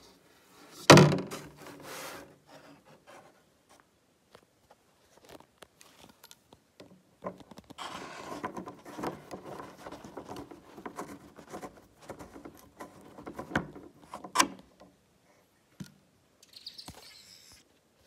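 Handling noises of a plastic bottle and plumbing fittings: a loud thunk about a second in, then rustling, scraping and small clicks as the metal nut of a braided steel water hose is screwed onto a threaded plastic float-valve fitting, with a sharp click a few seconds before the end.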